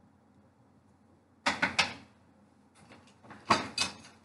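Hard plastic puck display cubes clacking against one another and the plastic bin as a cube is put away and the next picked out. A quick run of sharp clicks comes about one and a half seconds in, and a second, louder cluster comes near the end.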